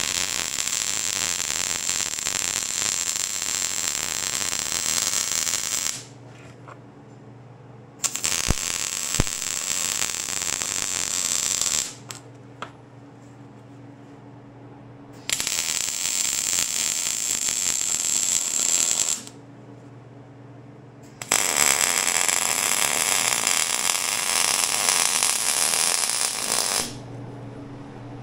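Wire-feed welder arc crackling in four runs of four to six seconds each, laid in short runs so the shaft does not overheat and bind. A steady low hum fills the gaps between runs.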